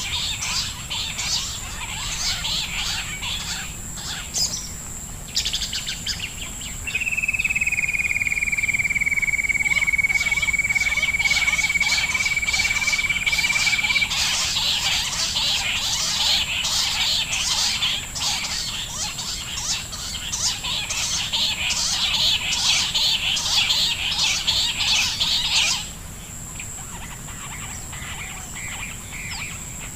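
Bush quail calling: a dense run of rapid, high-pitched chirping calls that stops abruptly near the end, leaving only a steady hiss. A single long, steady whistle is held for about seven seconds in the first half.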